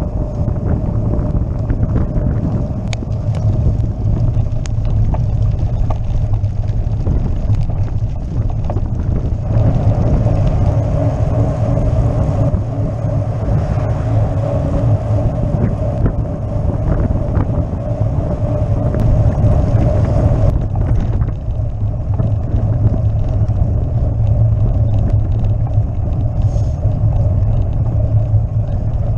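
Steady wind buffeting and road rumble picked up by a camera mounted on a road bicycle riding along a paved lane, with a few light clicks and rattles.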